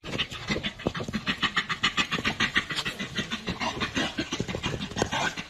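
A dog panting quickly and evenly, about six breaths a second, with irregular knocks and scrapes as it paws at a hard, round object.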